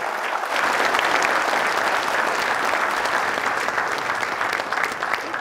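Large audience applauding, a dense steady clapping that eases slightly near the end.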